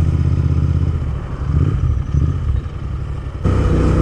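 Royal Enfield Interceptor 650's parallel-twin engine running through a loud aftermarket Gursewak exhaust, heard from the rider's seat. The note is steady at first, drops and breaks up unevenly about a second in, then jumps sharply louder near the end.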